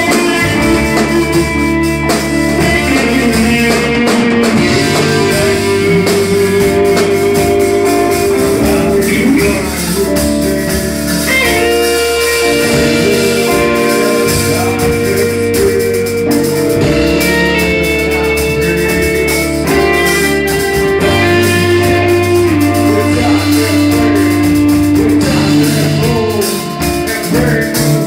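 Rock band playing live, with electric guitar and drum kit.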